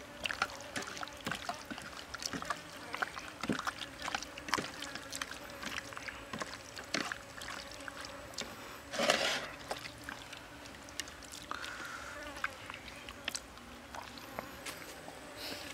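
Hands rubbing and squeezing a raw octopus coated in a wet, chopped-chili marinade: soft wet squelches and many small sticky clicks, with one louder brief noise about nine seconds in.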